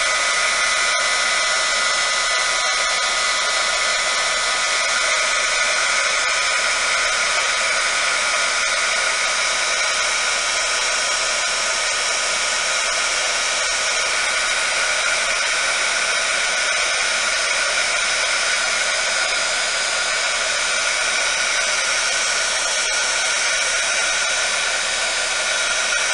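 Electric heat gun blowing steadily at close range, an even rushing of air with a steady whine from its fan, held on wet epoxy resin to push the white pigment back into a wave edge.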